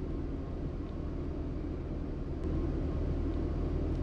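Steady low background hum and rumble with no speech.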